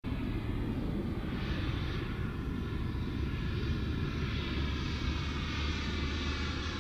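A steady droning noise with a deep hum underneath, starting suddenly out of silence.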